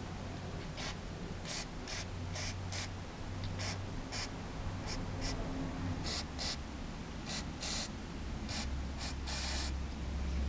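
Aerosol cleaner sprayed through a thin extension straw into a small carburetor jet in short hissing spritzes, about fifteen in all, two held a little longer near the end. The spray is forced through the jet to check that its tiny holes are clear.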